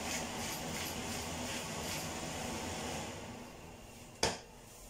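Glass hand-twisted spice grinder grinding in short twists, about three a second, then stopping about three seconds in; a single sharp click near the end.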